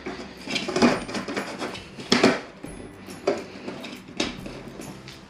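Air purifier filters and housing parts being handled and set down, giving several sharp knocks about a second apart with lighter rattling between them.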